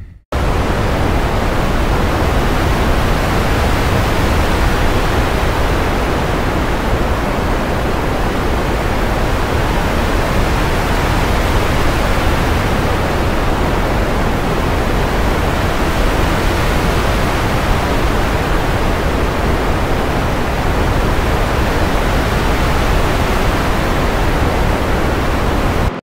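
Synthesized ocean-wave sound built from low-pass-filtered noise, played back from a DAW: a steady, loud rushing wash with a heavy low end and a top that shifts only slightly. It starts abruptly and cuts off abruptly near the end as playback stops.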